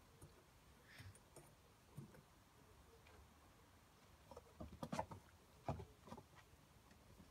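Faint, irregular taps and scuffles of puppies' paws scrabbling on wooden decking, thickening into a quick cluster of taps in the second half.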